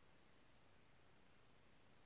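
Near silence: a faint, steady hiss with no distinct sounds.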